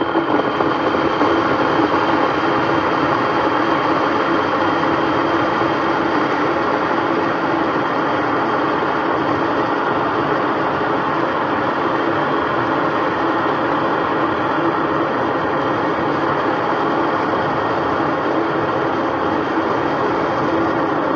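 Electric kettle heating water, a steady rushing rumble with a faint hum.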